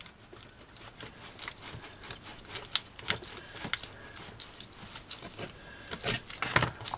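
Small craft knife cutting and prying through heat-hardened white foam rock pieces: irregular small crackles and clicks, with a cluster of louder ones about three seconds in and another near the end.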